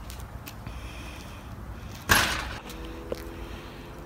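A basketball bounces once on a concrete driveway about two seconds in, a single sharp slap that dies away quickly. The rest is quiet outdoor background.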